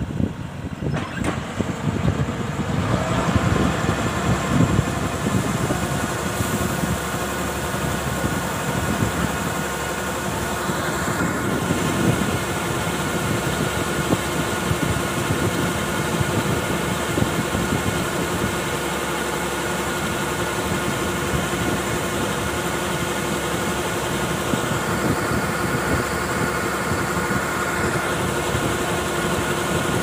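Kubota DC-105X rice combine harvester running steadily while unloading: its diesel engine and unloading auger driving threshed rice grain out of the spout into a truck bed. A steady whine sets in about three seconds in as the unloading runs.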